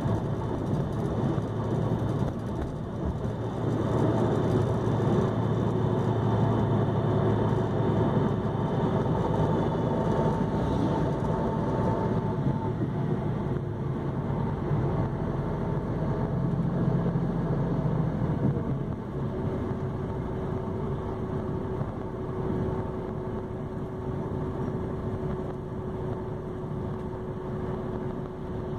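Mercedes-Benz OH-1628L coach's diesel engine running continuously. It is louder through the first two-thirds, then eases off to a steadier, quieter hum.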